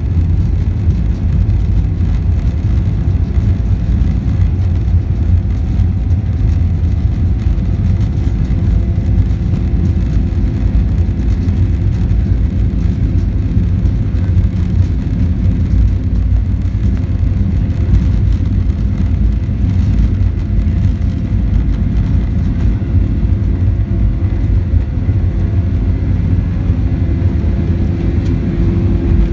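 Boeing 737-800's CFM56-7B turbofan engines at takeoff power, heard from inside the cabin over the wing: a steady loud roar with a deep rumble and several steady tones over it, the fan's buzzsaw. One hum grows stronger near the end.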